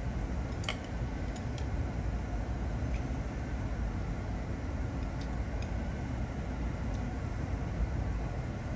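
Steady low rumble of background noise with a few faint, short clicks.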